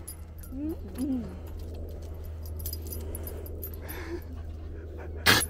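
Cavalier King Charles Spaniel whining in short rising-and-falling cries, twice about a second in and once more near four seconds, over a steady low hum. Just before the end comes a single sharp, loud thump.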